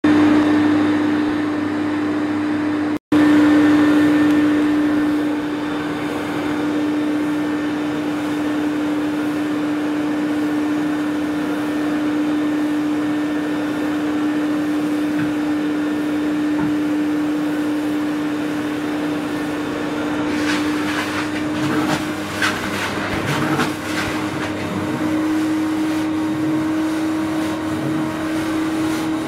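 Carpet extraction machine's vacuum motor running with a steady drone and hum while the cleaning wand is drawn over the carpet. The sound drops out for an instant about three seconds in. From about twenty seconds in, a few seconds of rapid crackling sit over the drone.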